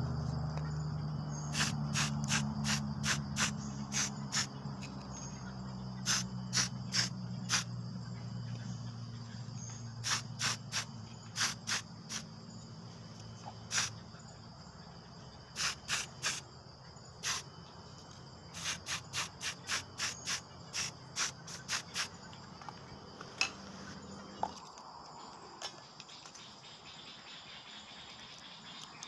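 Aerosol spray-paint can sprayed in many short hissing bursts, fired in quick clusters onto bamboo slingshot pieces. A steady high insect drone sounds behind it, and a low hum cuts out near the end.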